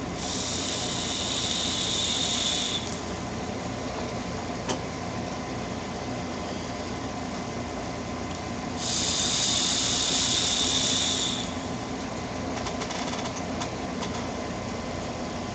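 Two long draws on a vape with a freshly re-dripped dripping atomizer, each a steady airy hiss lasting about two and a half seconds, the second coming some six seconds after the first.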